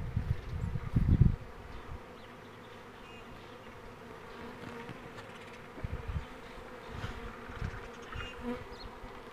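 Honeybees buzzing around a hive: a steady hum. Low rumbles on the microphone in the first second or so.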